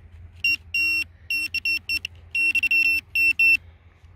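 Handheld metal-detecting pinpointer beeping as it is probed through loose soil in a dug hole: a string of about a dozen short, high beeps at uneven spacing, crowding closer together around the middle as the tip nears the buried metal target.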